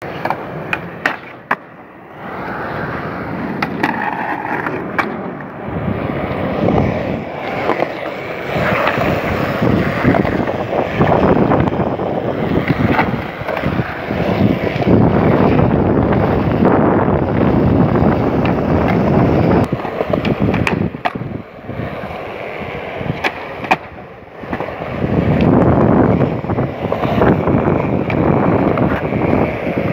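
Skateboard wheels rolling over smooth concrete with a steady rumble that swells and fades, broken several times by sharp clacks of the board popping, landing and striking the ground.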